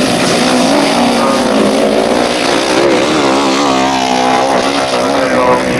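Several grasstrack racing sidecar outfits' engines running hard close by, the revs rising and falling as they slide through a bend.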